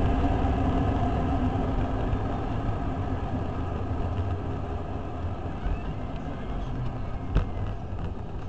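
Jet airliner's engine hum and rumble heard inside the cabin as the plane rolls slowly on the ground, the steady noise gradually fading as it slows. There is a single sharp knock near the end.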